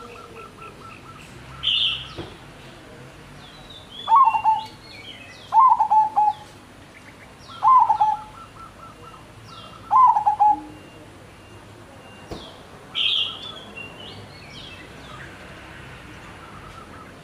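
A caged bird calling: four loud, short calls about two seconds apart, each falling in pitch. Other birds chirp higher and more faintly around it, with two louder chirps near the start and past the middle.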